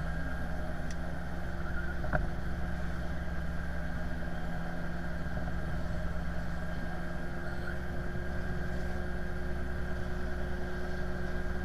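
Steady mechanical drone of an airliner pushback, from the tow tug and the aircraft's running engines, with a few constant hum tones over a low rumble. A short click about two seconds in.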